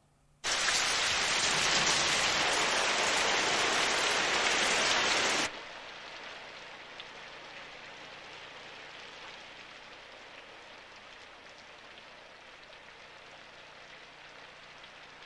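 Rain, as a sound effect: heavy rain starts abruptly about half a second in, then about five seconds later drops sharply to a quieter, steady rain that carries on.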